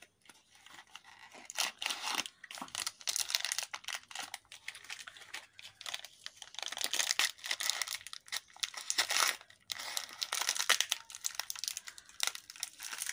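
Plastic wrapping crinkling and tearing as it is pulled by hand off a new ball bearing taken from its cardboard box, in irregular crackling rustles.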